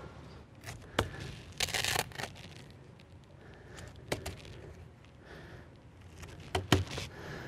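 Handling noises as red 40-grit sanding discs are fitted to the six pads of a Bona FlexiSand DCS multi-head sander: scattered clicks and knocks, with a short rasping noise about one and a half seconds in.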